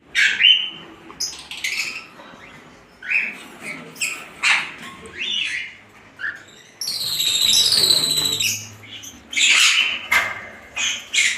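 Birds calling in a breeding aviary: a string of short, sharp squawks and chirps, with a longer, louder harsh call from about seven to eight and a half seconds in.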